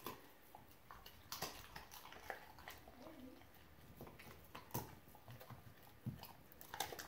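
Siberian husky chewing scraps of rotisserie chicken off a tile floor: faint, irregular crunches and clicks of teeth on meat and bone.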